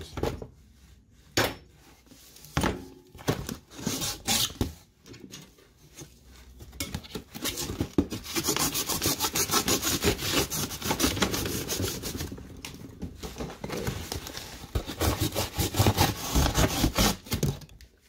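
Cardboard box being cut and torn open by hand: a few sharp knocks early, then a long stretch of scraping and rubbing cardboard.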